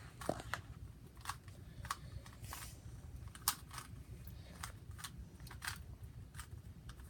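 Plastic Rubik's cube layers being twisted by hand, giving irregular sharp clicks, one or two a second.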